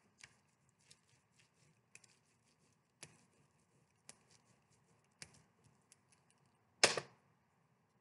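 Hand burnishing of copy paper over an inked printing plate: a hand-held tool is rubbed across the back of the sheet, giving faint, irregular scratchy strokes about once a second. A louder brief rustle comes about seven seconds in.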